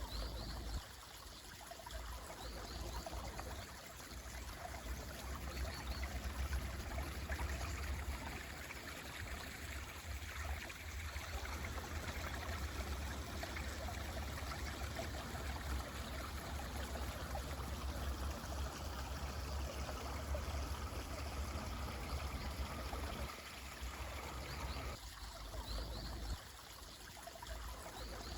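Mountain stream running steadily, with a deep low rumble under the rushing water. A few faint bird chirps come through near the start and again near the end.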